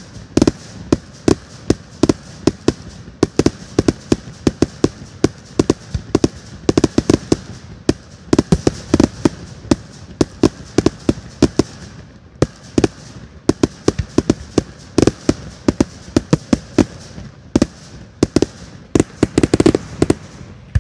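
Fireworks going off in a rapid barrage of sharp bangs and crackles, several a second without a break.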